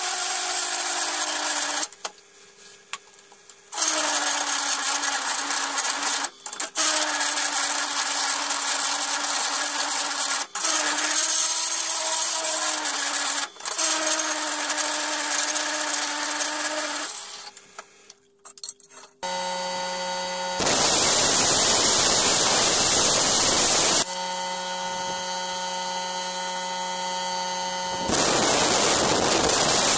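Drill press running a hole cutter through a thick steel plate, its motor and the cutting going steadily, with a short stop about two seconds in and brief pauses, then stopping for good after about seventeen seconds. After that comes a different steady hum with two stretches of loud hissing.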